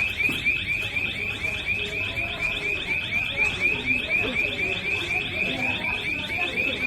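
Electronic alarm sounding continuously: a rapid, repeating high-pitched warble, about five chirps a second.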